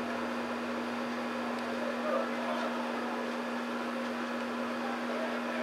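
Steady outdoor background hiss with a constant hum, and faint, distant voices of spectators and players, with no distinct event.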